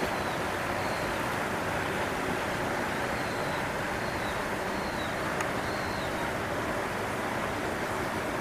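Steady rushing noise, with faint short high chirps now and then.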